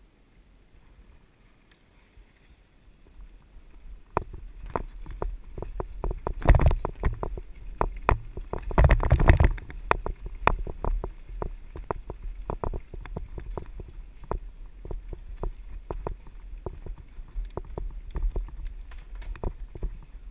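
Mountain bike rattling and clattering over a rough dirt trail on a descent. Starting about four seconds in, there are rapid sharp knocks from the bike over roots and rocks, with a low rumble beneath, loudest about six and nine seconds in.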